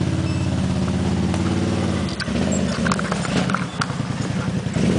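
ATV (quad bike) engine running steadily at low revs as it crawls over a rocky trail, dipping briefly about two seconds in, with a few sharp knocks in the second half.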